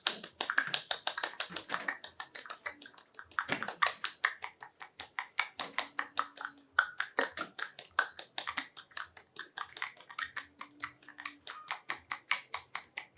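Rapid wet mouth smacks and kissing clicks, about seven a second with brief pauses, made with a little water in the mouth as a foley effect for a love scene. A faint short low hum comes in twice.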